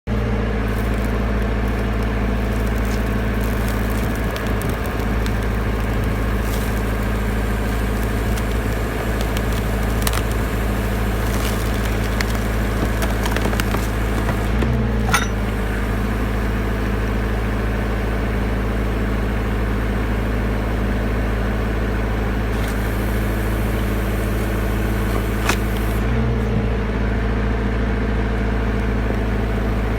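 Engine of the hydraulic power unit driving a rock splitter, running steadily, with a couple of sharp clicks about halfway through and again near the end.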